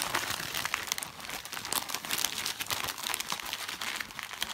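Gift-wrapping paper crinkling and tearing as a collie pulls it off a present with its mouth.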